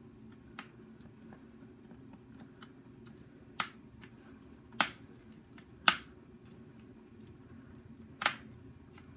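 Sharp clicks and taps of a Nerf blaster's plastic shell parts and tools being handled during disassembly, about five separate clicks spread out, the loudest near the middle, over a low steady hum.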